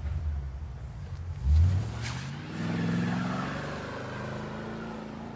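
Car engine revving and accelerating away, rising in pitch and then slowly fading as the car drives off.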